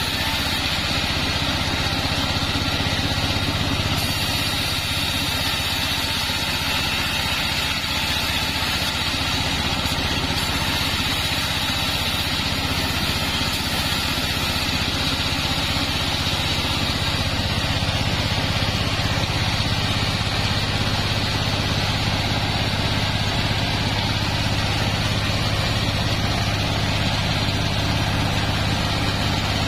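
Engine-driven bandsaw mill running steadily, its blade sawing through sengon wood.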